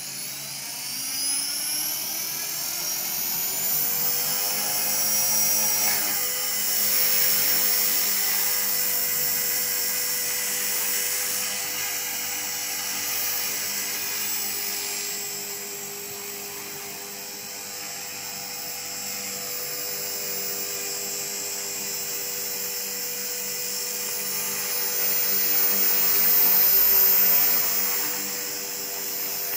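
Radio-controlled model helicopter spooling up: a high-pitched whine rises in pitch over the first five or six seconds as the rotor comes up to speed. It then settles into a steady whine with rotor hum and grows loudest near the end as the helicopter lifts off and climbs.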